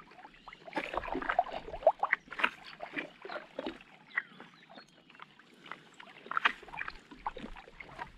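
Water splashing and lapping around a floating foam-raft hide in small irregular splashes as it is pushed along by kicking swim fins.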